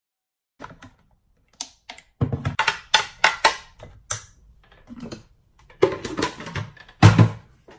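A run of clicks and knocks from handling a plastic blender jug and a metal mesh strainer as blended pulp is tipped through the strainer, in two clusters with the loudest knock near the end.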